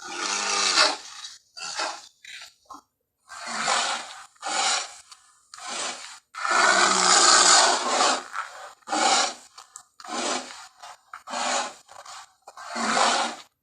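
Gorilla vocalizations: a run of about ten short, harsh, noisy roars and grunts with brief silences between them. The longest comes about six and a half seconds in and lasts nearly two seconds.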